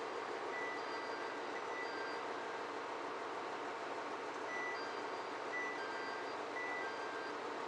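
A diesel railcar idling at a platform, a steady rumble and hiss, with a short electronic chime of several pitched beeps that repeats about every four seconds.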